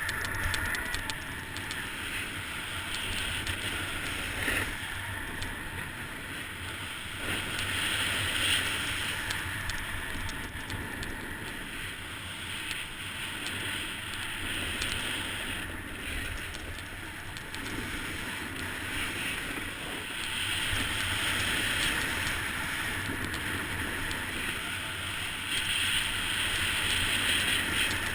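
Skis sliding and scraping over packed snow, the hiss surging every few seconds with each turn, over a steady low rush of wind on the microphone.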